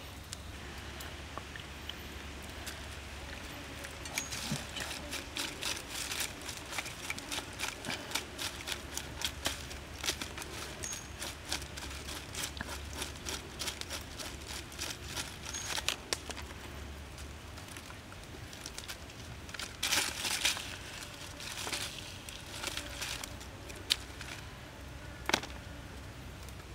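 A metal spoon scraping along a water snake's body over a bed of fresh leaves, the leaves crinkling: long runs of quick scrapes and crackles, a louder scraping burst a little past the middle, and a few sharp clicks near the end.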